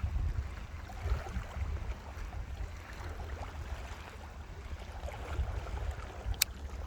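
Gusty low rumble of wind buffeting the microphone, with faint scattered ticks and one sharp click near the end.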